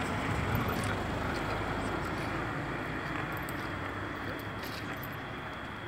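Car engine idling: a steady low rumble that fades slightly.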